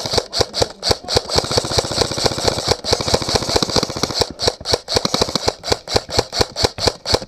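Airsoft electric guns (AEGs) firing in rapid strings of shots, several a second with brief pauses, laying down suppressive fire.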